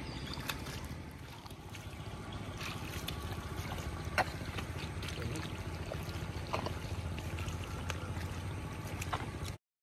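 Water sloshing with occasional splashes as someone wades and gropes by hand through a flooded paddy field, over a low steady rumble. The sound cuts off suddenly near the end.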